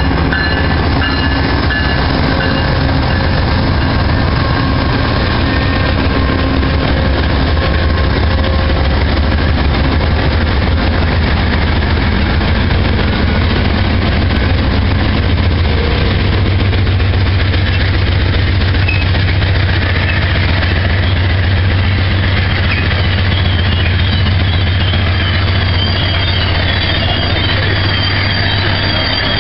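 Amtrak passenger train coming through the station close by: a loud, steady rumble of wheels and engine, with a high-pitched squeal from the wheels coming in over the last few seconds.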